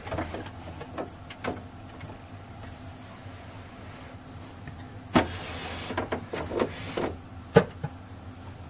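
Brother electric sewing machine running, its motor humming steadily as it stitches the skirt lining to the zipper, with a few sharp clicks and knocks in the second half.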